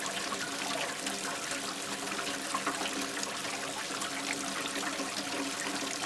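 Steady rushing water, with a faint low hum under it.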